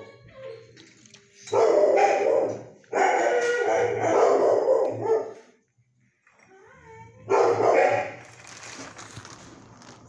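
Dogs barking in a shelter kennel, in three loud bouts with short quiet gaps between them.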